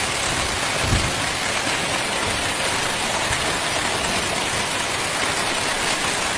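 Heavy rain pouring down in a steady, dense hiss, with a brief low thump about a second in.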